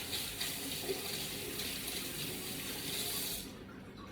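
A tap running into a sink as egg is washed off hands, a steady rush of water that is shut off about three and a half seconds in.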